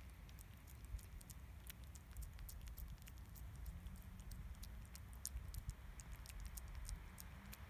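A cat chewing and eating wet food: a quick, irregular run of small wet clicks and smacks, over a steady low rumble.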